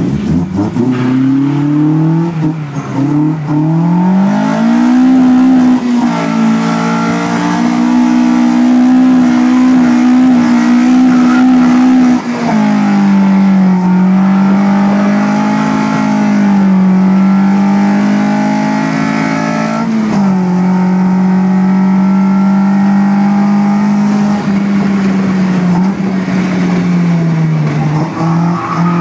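Toyota AE86's swapped Beams 3S-GE four-cylinder engine heard from inside the cabin, revving up hard over the first few seconds and then held at high revs, its pitch dipping and rising, with drops about 12 and 20 seconds in.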